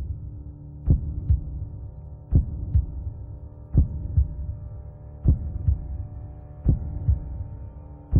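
Slow heartbeat beating in double beats, one pair about every one and a half seconds, over a steady low drone.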